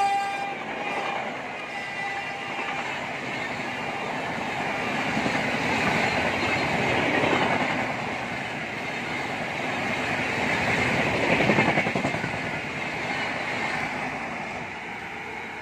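Electric-hauled passenger train of AC chair cars running through the station at speed: a continuous rush of wheel and rail noise as the coaches pass. The locomotive's horn cuts off right at the start. The noise swells twice and fades near the end as the last coaches go by.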